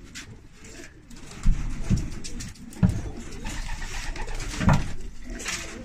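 Homing pigeons cooing in their loft: a few low coos about a second and a half, two, three and nearly five seconds in, with light knocks and rustling from a wooden perch being handled.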